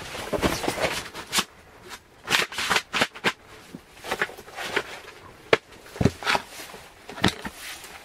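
Camping gear being set down and shifted on a paper-covered tent floor: irregular light knocks of plastic containers and crinkling of the paper underfoot.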